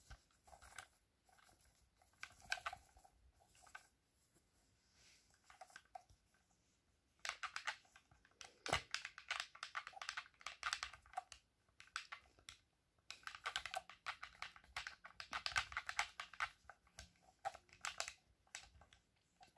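Buttons and thumbsticks of a wired Xbox-style game controller being mashed: a few scattered clicks at first, then fast, dense clicking from about seven seconds in and again from about thirteen seconds in.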